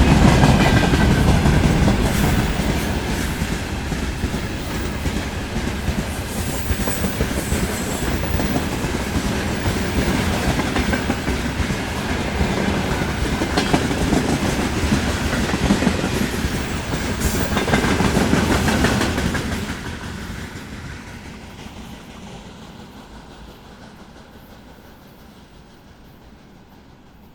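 Freight train's wagons rolling past, wheels clacking over the rail joints. About twenty seconds in, the end of the train goes by and the sound fades away.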